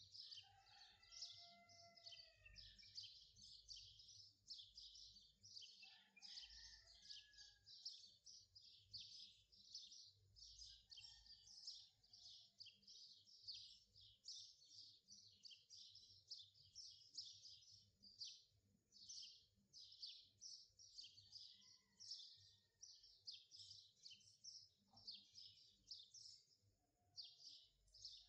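Faint birdsong: a dense, unbroken stream of quick high chirps, with a few lower, curving whistled calls now and then.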